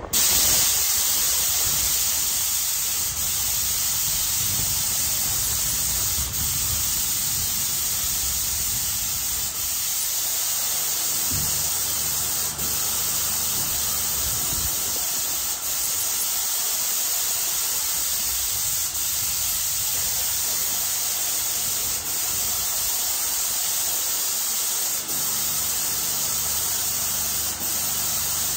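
Airless paint sprayer with a 517 tip spraying a mist coat onto bare plaster ceiling: a loud, steady high-pressure hiss that starts suddenly and dips briefly about every three seconds.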